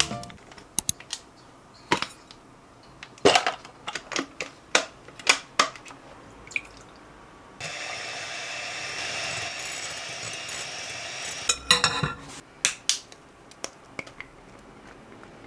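Kitchen dishes and utensils clinking and knocking, with a tap running steadily for about four seconds midway.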